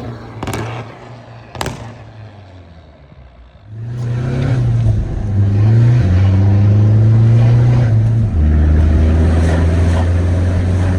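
Peugeot 308 diesel engine with a Stage 1+ tune, sounding through a full stainless-steel exhaust with the silencers removed. After a quieter start with a couple of sharp clicks, it comes in loud about four seconds in, its pitch stepping up about six seconds in and dropping about eight seconds in.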